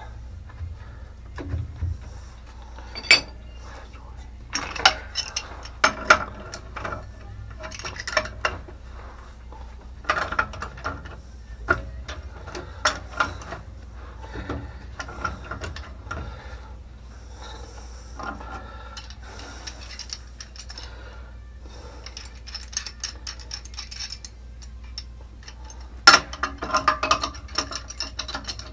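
Hand tools working on metal pump fittings: bursts of sharp clicks and clanks, with clusters of rapid ratchet-like ticks. The loudest clank comes near the end.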